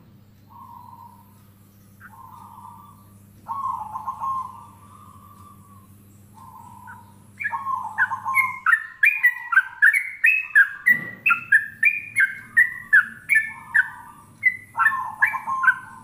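A caged yellow-vented bulbul and a zebra dove calling. At first there are soft, low, trilled notes. From about halfway there is a run of loud, quick, rising chirped notes, about two a second.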